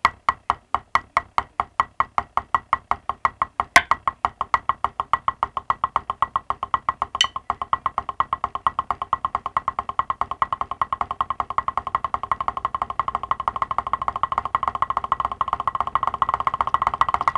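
Wooden drumsticks playing double strokes (mummy-daddy, right-right-left-left) on a rubber drum practice pad, accelerating steadily from a few taps a second into a fast, dense roll. Two sharper clicks stand out about 4 and 7 seconds in.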